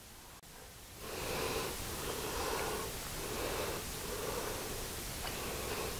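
A man chewing a bite of a steak fajita taco: a soft noise that swells about once a second, starting after a near-silent first second.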